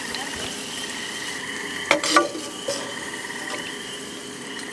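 Oil sizzling steadily in a deep-frying pan, with a few sharp metal clinks about two seconds in as a metal skimmer knocks and scrapes the pan while lifting out fried pickles. A faint steady high whine runs underneath.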